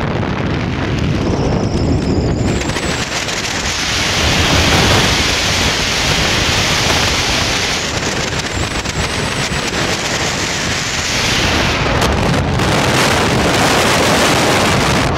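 Wind buffeting the microphone aboard a speedboat running at speed, a loud steady rushing roar with a deep rumble in it.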